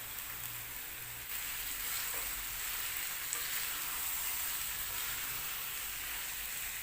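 Onion-tomato masala sizzling in a frying pan, the sizzle growing louder about a second in as boiled eggs are added and stirred through it.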